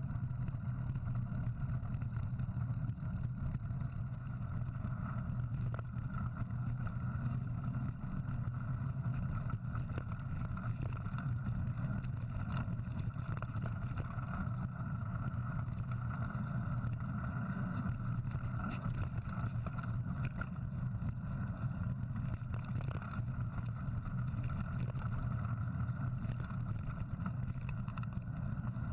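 Steady, muffled rumble of a mountain bike rolling over a dirt and rock trail, picked up by an action camera mounted on the rider, with wind on the microphone and small knocks and rattles from the bumps.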